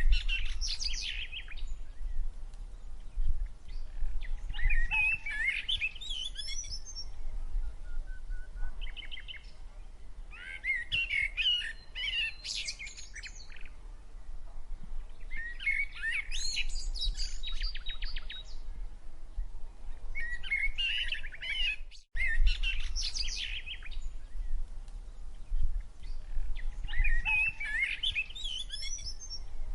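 Songbirds singing in chirping, warbling phrases a few seconds apart, over a steady low rumble. The sound cuts out for a split second about two-thirds of the way through.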